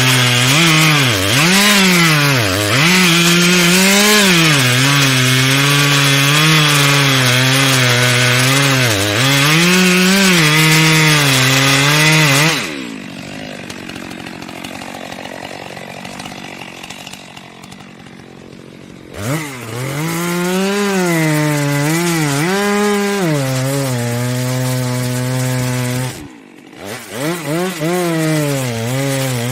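Chainsaw engine cutting wood, its pitch repeatedly dipping and recovering as the chain bogs down in the cut. The engine note drops out for about six seconds in the middle, leaving only quieter noise, then the sawing resumes, with another short break near the end.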